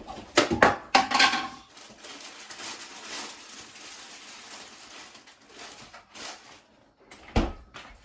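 A refrigerator door is pulled open with a few sharp clacks and knocks. A soft steady hiss follows, then the door shuts with a heavy thump about seven seconds in.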